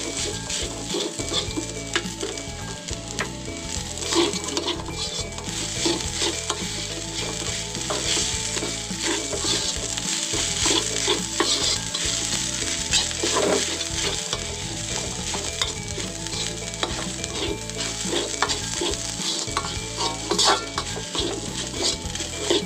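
Slotted metal spatula scraping and turning corn rice around a wide metal wok in a repeated stir-fry rhythm, over a steady sizzle of the rice frying in oil.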